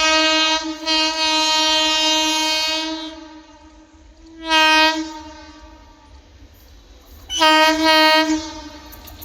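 Indian Railways train horn blowing as the express approaches: one long blast of about three seconds, a short blast midway, then another blast of about a second near the end.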